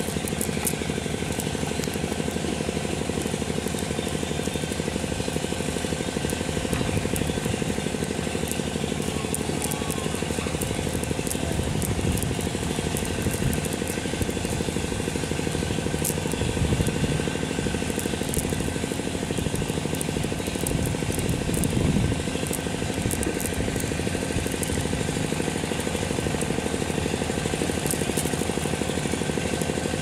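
An engine running steadily at a fast, even chug.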